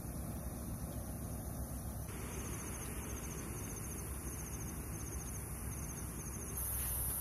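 Steady low rumble with insects chirping over it. From about two seconds in, a short high trill repeats at an even pace, about three every two seconds, over a continuous high insect hum.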